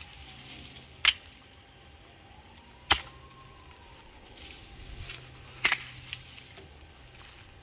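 Hemlock Ares knife chopping into the branches of a dead tree: three sharp, separate strikes a second or two apart, the last a quick double.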